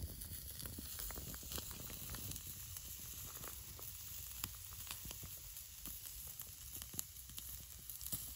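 Bratwursts sizzling on a grill rack over a small wood fire in a folding twig stove, with faint irregular crackles and pops from the burning wood.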